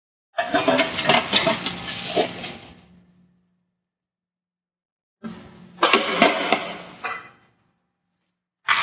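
Metal clattering and clinking as the large metal cover of a Prius hybrid battery pack is handled and set in place, in two bursts with a third starting near the end.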